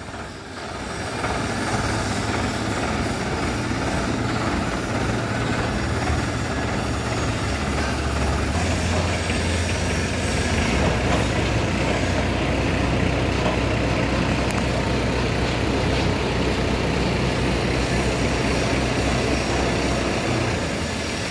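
Sonalika tractor's diesel engine running steadily while its hydraulics move the crane boom and lower the post-hole auger. The engine note shifts lower and fuller about eight and a half seconds in.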